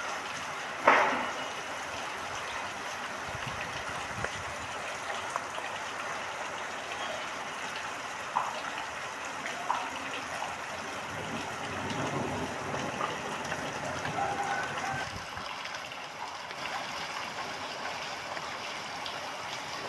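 Heavy monsoon rain falling steadily, with scattered louder drops and drips landing close by. A single sharp knock about a second in is the loudest sound.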